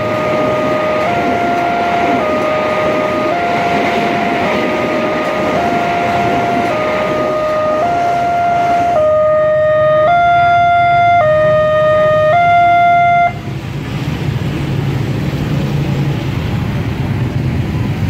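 Two-tone electronic siren of an Indonesian railway level crossing (Wantech alarm), switching between a higher and a lower pitch about once a second, over the rolling noise of a passing passenger train. The siren grows louder, then cuts off suddenly about three-quarters of the way through once the train has cleared, leaving road traffic of cars and motorcycles running at the crossing.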